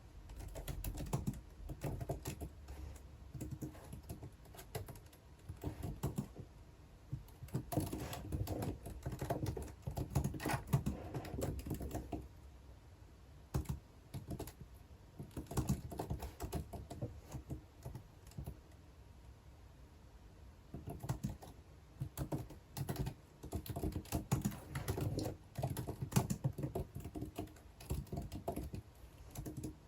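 Typing on a computer keyboard in fast bursts of key clicks, broken by a few short pauses.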